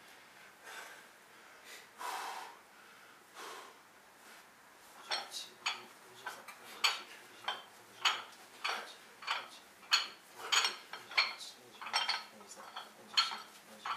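Metal weights clinking with each rep of a prone bench row: a few scattered clinks at first, then from about five seconds in a steady run of sharp clinks, about one and a half to two a second.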